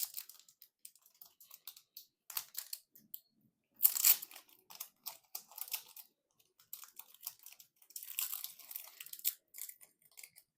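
Foil wrapper of a Magic: The Gathering collector booster pack being torn open and crinkled by hand, in irregular bursts of crackling, loudest about four seconds in and again around eight to nine seconds.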